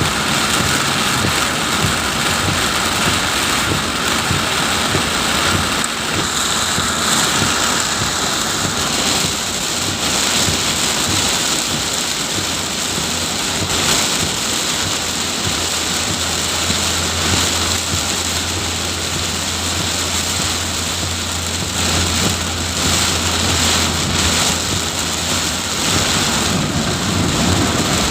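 Heavy rain pouring down in strong wind, a loud steady hiss. A low steady hum joins in for several seconds past the middle.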